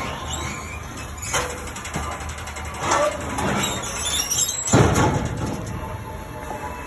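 Metal donation-bin chute worked by its handle, swinging open and shut with squeaks, scrapes and clanks, and one heavy clunk just before five seconds in as the hopper drops back.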